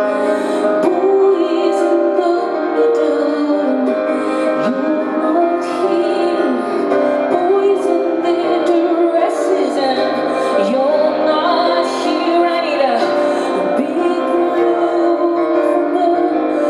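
Live music: a woman singing held and gliding notes over instrumental accompaniment.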